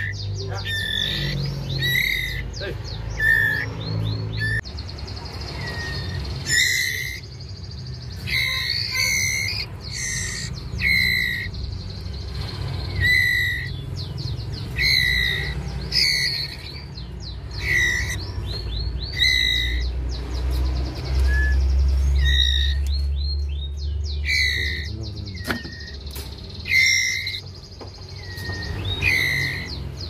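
White-rumped shama (murai batu) fledglings, about 11 days old, giving short, sharp begging calls over and over, roughly one every second or two. A low rumble runs underneath, heaviest a little past the middle.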